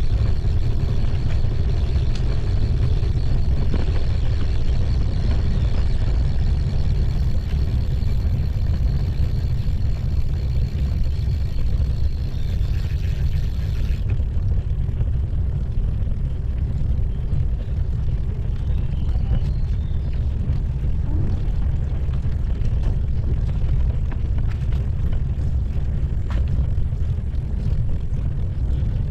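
Steady low rumble of a bicycle ride over brick paving: wind buffeting the camera's microphone and tyres rolling on the pavers. The faint high hiss cuts off abruptly about halfway through.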